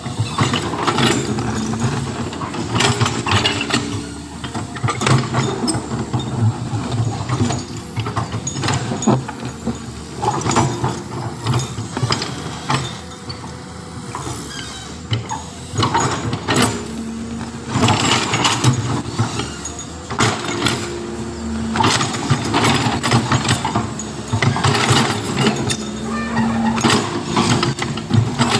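Heavy diesel machinery running and working under varying load, with frequent metallic clanks and rattles over the engine.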